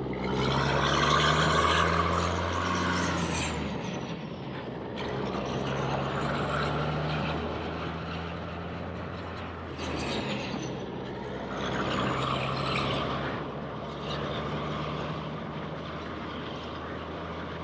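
Heavy diesel truck engine running under way, its low note rising and easing in steps as if shifting through gears, with a faint high whistle gliding up and down.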